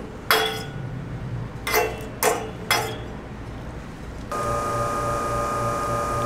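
A stainless steel pitcher clinks four times against the metal drip tray grate of an espresso machine. About four seconds in, the machine's pump starts with a steady hum as the espresso shot is pulled.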